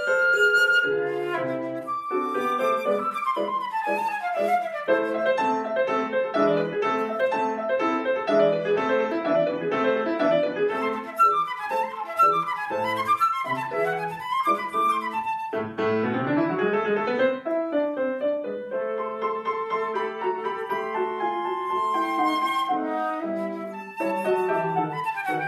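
Concert flute and grand piano playing a classical piece together, with quick runs of notes throughout. About two-thirds of the way through, a fast run climbs from low to high.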